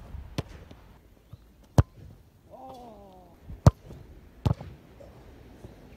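A football kicked hard and saved, in a run of sharp thuds: boot striking the ball and the ball smacking into the goalkeeper's gloves, the loudest thud a little after the middle. Partway through, a short voice call falls in pitch.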